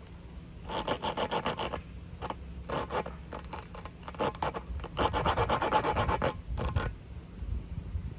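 Spiral rasp tool worked rapidly in and out of a tire puncture, reaming and roughening the hole to prepare it for the plug. The rasping comes in several bursts of quick strokes.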